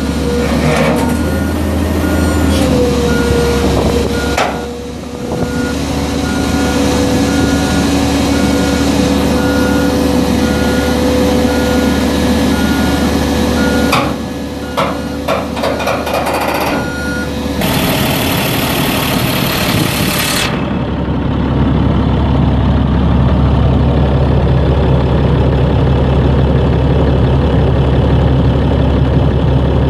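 Rear-loader garbage truck's packer hydraulics running with a steady whine while a warning alarm beeps over and over, with a few clanks a little past the middle. About two-thirds of the way in, this gives way to the truck's Caterpillar C7 inline-six diesel idling steadily.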